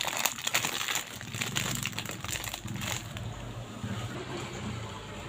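Clear plastic bag crinkling and crackling as it is handled and opened by hand. The crackling is busiest for the first three seconds and thins out after.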